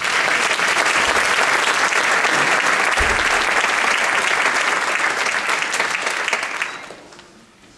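Audience applauding in a school auditorium, a dense clatter of clapping that starts at once and dies away near the end.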